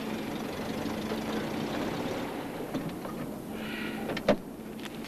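Volkswagen Type 3 Variant's air-cooled flat-four engine idling steadily with the car at a standstill, with one sharp click about four seconds in.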